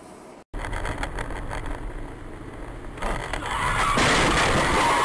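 A car driving at speed, heard through a dashcam microphone as loud road and wind noise over a low rumble. It follows a short drop-out about half a second in and gets louder in two steps, about three and four seconds in.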